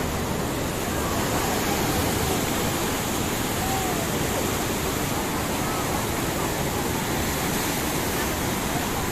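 Floodwater rushing in a steady, unbroken torrent.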